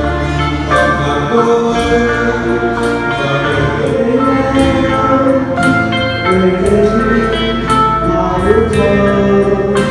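Live male singing over strummed acoustic guitar and electronic keyboard.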